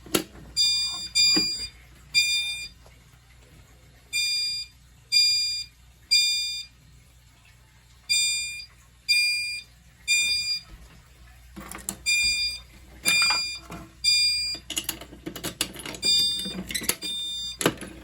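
Fire alarm chime strobe (System Sensor SpectrAlert Advance CHSW) sounding in the temporal-three evacuation pattern: three chimes about a second apart, a pause, then again, five rounds in all. Some knocks sound near the end.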